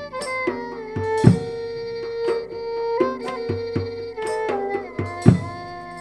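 Dance accompaniment music: a sliding melody over hand-drum beats, with two heavy low drum strokes about four seconds apart. The drums stop near the end and a held chord fades.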